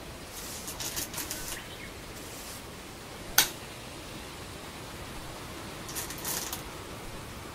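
A single sharp click of a Go stone snapped down onto a wooden board, a little after halfway, over a steady background hiss. Brief rustling comes just before the click and again near the end.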